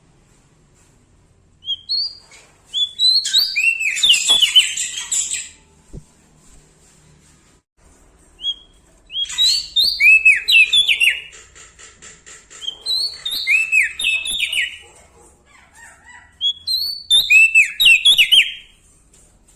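Prenjak daun Lombok, a small songbird, singing loud, clear song in three bouts of rapid, arched whistled notes, the middle bout with a buzzy chattering stretch, with short pauses between bouts.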